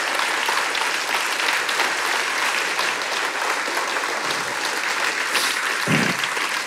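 Church congregation applauding steadily: dense, sustained clapping from a large crowd, given as a standing ovation.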